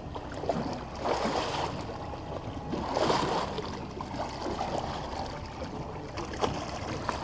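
Water splashing and sloshing at the side of a boat as a large hooked fish is held at the surface with a gaff, in surges about a second in and about three seconds in.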